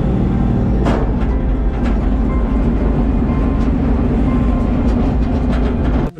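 Heavy steady rumble of a mini goods truck's engine and road noise, heard from inside its covered cargo box, with occasional short rattles and knocks from the body; it cuts off abruptly at the very end.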